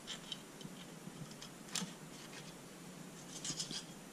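Fillet knife cutting a fillet off a flounder's bones: faint, scattered scratchy ticks as the blade works along the bones and the fish shifts on the paper towel, with a sharper click about two seconds in and a quick run of ticks near the end.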